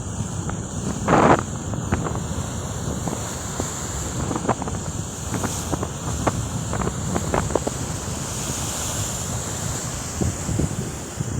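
Sea waves and surf with wind rumbling on the microphone, and frequent short, sharp splashing sounds; one louder surge comes about a second in.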